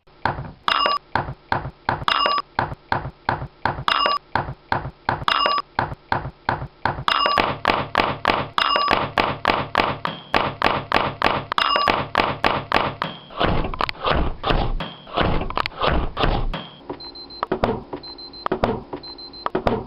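A rapid, rhythmic run of thuds and knocks, several a second, with short high beeps recurring about every second and a half, and a higher repeated beep near the end.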